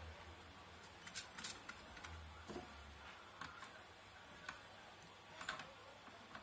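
Faint, scattered clicks and taps, about half a dozen, from hands fitting a small MP3 module and its wiring into a metal amplifier chassis.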